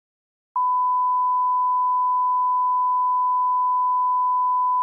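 A 1 kHz test tone, the bars-and-tone line-up signal that goes with colour bars. It starts abruptly about half a second in and then holds one steady pitch at a constant level.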